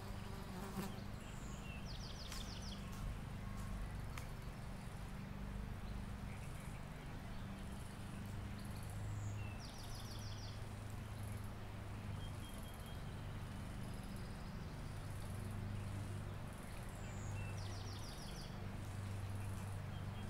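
Insects buzzing in a steady, wavering low hum. A bird sings the same short trilled song three times, about every seven or eight seconds.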